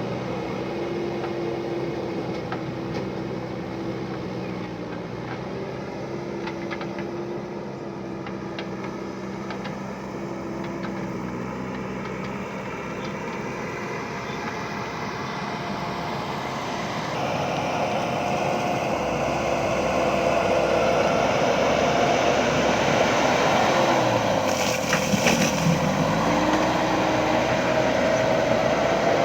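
JCB backhoe loader's diesel engine running steadily, then growing louder about two-thirds of the way through as it works under load, with its pitch briefly sagging and recovering near the end.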